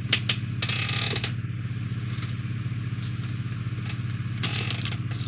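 Model-kit parts being handled and set down on a work surface: scattered light clicks and knocks, with a brief rustle about a second in and another cluster of clicks near the end, over a steady low background hum.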